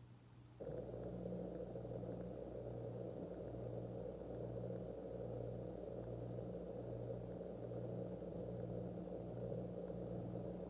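A machine hum switches on abruptly about half a second in and runs steadily, with a low throb pulsing about twice a second.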